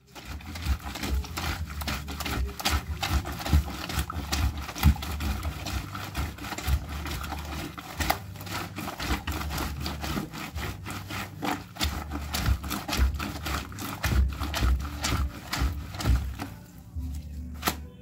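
Soapy wet cloth scrubbed by hand against a ribbed concrete washboard, a quick, irregular run of rubbing strokes that keeps going, thinning out briefly near the end.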